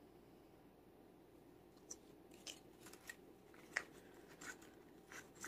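Faint, scattered clicks and rustles of cardstock die-cut pieces and a paper purse being handled and tucked into a pocket, starting about two seconds in after near silence.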